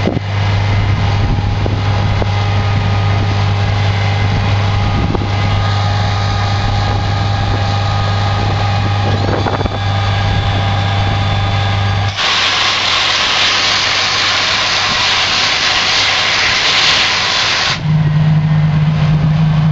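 Socata TB10 Tobago's piston engine droning steadily, heard from inside the cabin. Past the middle the drone cuts abruptly to loud hiss for about five seconds, then returns at a higher pitch.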